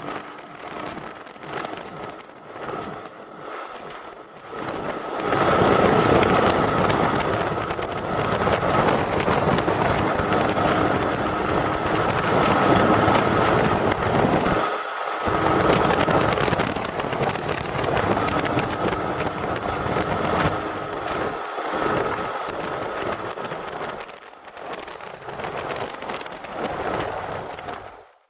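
Motorcycle riding along a road, with wind rushing over the handlebar camera's microphone and the engine running underneath. The wind noise grows much louder about five seconds in, drops out briefly near the middle, and eases off near the end.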